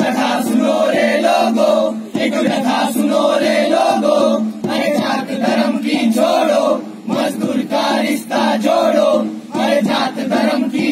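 A group of voices chanting together in short phrases with brief breaks between them.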